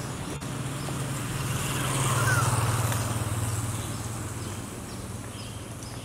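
A motor vehicle passing, its low engine hum swelling to a peak about two seconds in and then fading away, with a few faint short bird calls over it.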